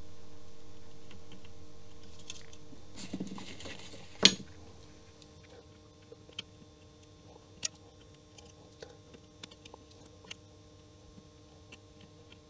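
Small scattered clicks and taps of hand-soldering a row of pin headers on a circuit board: the iron tip and solder wire touching the pins and the board in its holder, with a rustle and then one sharp click about four seconds in. Quiet background music fades out over the first few seconds.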